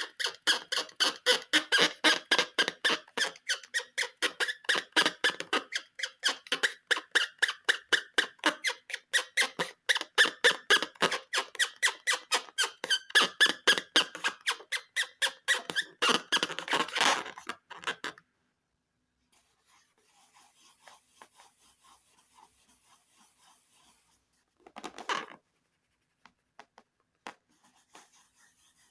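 Rubber balloons squeaking as they are rubbed and squeezed by hand, in fast rhythmic strokes of about four or five a second. The squeaking stops about eighteen seconds in, and a short rubbing sound follows some seconds later.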